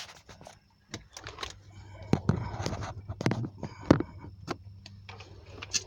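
Handling noise: irregular clicks, knocks and rustles as a phone is set in place and an electric guitar is taken up, over a steady low hum that starts about a second in.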